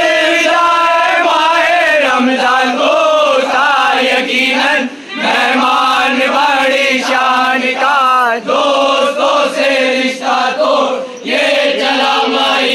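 A crowd of men chanting together in unison, loud, in short repeated phrases with brief breaks for breath.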